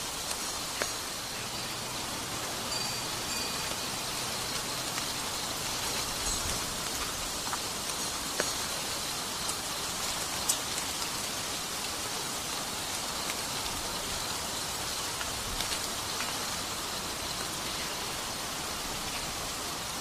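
Steady outdoor ambience: an even hiss with scattered light ticks.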